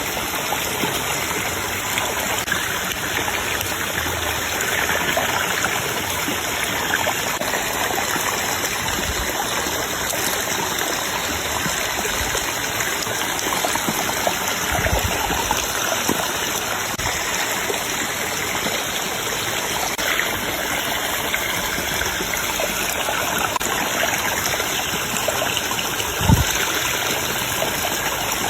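Steady rushing of flowing stream water, with a few brief low thumps now and then, the loudest near the end.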